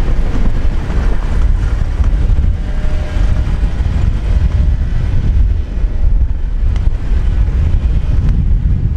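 Wind buffeting the microphone of a camera mounted outside a vehicle driving along a sandy track: a loud, steady low rumble with the vehicle's running noise underneath.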